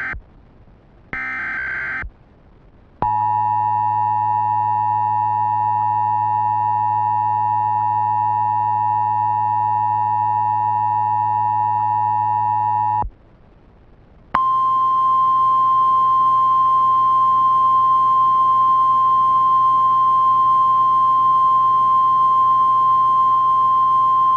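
Emergency Alert System signals: two short bursts of the digital header data about a second apart, then the two-tone EAS attention signal held steady for about ten seconds. After a short gap comes a single steady, slightly higher NOAA Weather Radio warning tone for about ten more seconds.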